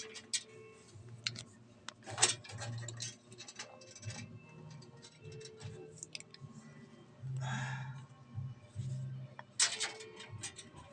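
Irregular small clicks, taps and scratches of hands working cable connectors and wires inside a PC case, with a short rustle about seven seconds in.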